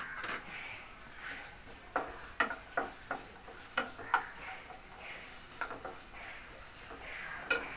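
Potato batons sizzling steadily as they fry in hot mustard oil in a nonstick kadai. A wooden spatula stirs them, knocking and scraping against the pan several times between about two and four seconds in, and twice more later.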